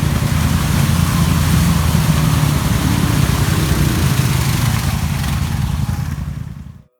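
Honda Foreman 500 ATV's single-cylinder engine running steadily, with a hiss of wind or spray over it; the sound fades out near the end.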